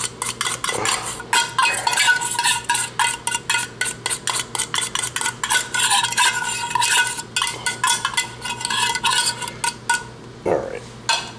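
Metal fork scraping and tapping quickly inside an emptied tuna can, about four strokes a second, to get the last of the tuna out; it stops about ten seconds in.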